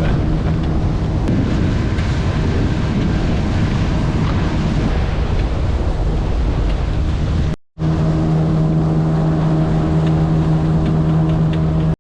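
Motorboat engine running steadily under way, with wind buffeting the microphone and water rushing past the hull. A brief break about two-thirds of the way through, after which the engine hum is stronger.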